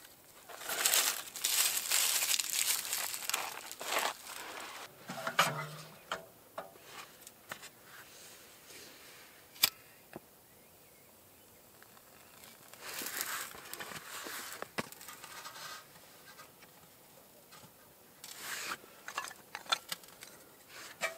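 Dry wood shavings and tinder rustling and crinkling in irregular bursts as they are handled and pushed into a small stove, with one sharp click about ten seconds in.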